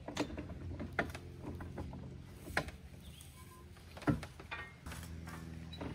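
Pipe wrench turning a large treehouse attachment bolt into a tree trunk: a few sharp clicks and creaks, about five in six seconds, as the wrench grips and the bolt works into the wood.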